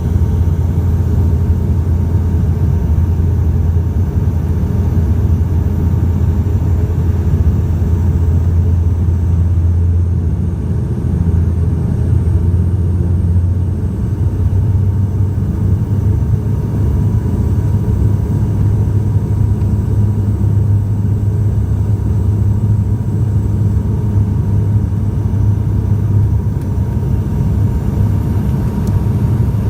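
Bombardier Dash 8 turboprop engines and propellers droning steadily, heard inside the passenger cabin, with a slight change in the drone about eleven seconds in.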